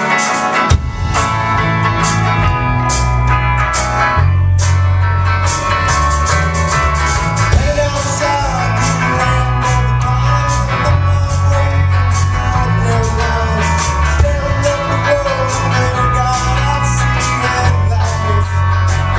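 Live band playing a country-rock song: acoustic guitar strumming with bass and drums coming in about a second in and a steady beat from then on.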